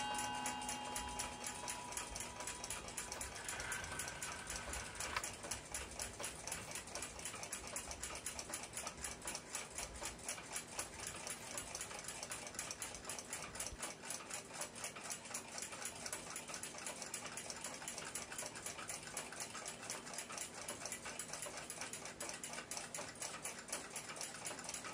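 Steady, rapid ticking of a clock, even and unbroken. A few held music notes die away in the first few seconds.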